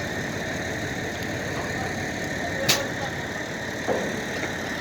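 An engine running steadily in the background, with a single sharp click about two and a half seconds in and a softer tap near the end.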